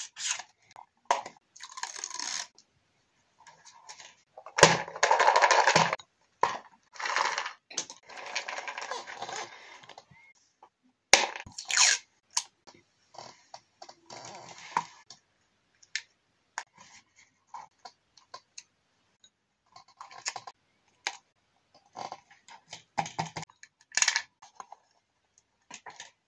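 Close-up craft handling sounds: paper and tape rustling and scraping in short bursts, with a louder stretch of rustling a few seconds in. About halfway through come a few sharp scissor snips as a strip of tape is trimmed on the notebook page.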